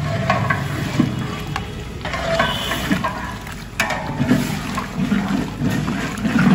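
Chicken boiling hard in spiced broth in a large metal cooking pot over high heat, bubbling and sloshing as a long metal ladle stirs it, with scattered clinks and scrapes of the ladle against the pot.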